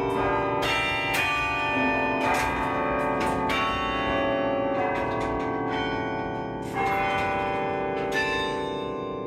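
A 78-bell carillon played from its baton keyboard: a quick run of struck bell notes, then slower notes left ringing over one another and fading, with a louder strike about seven seconds in.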